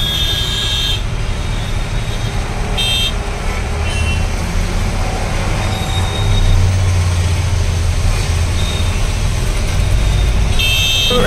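Truck engine running on the road, a low rumble that grows louder about six seconds in, amid traffic with short horn toots near the start, around three seconds in and again at the end.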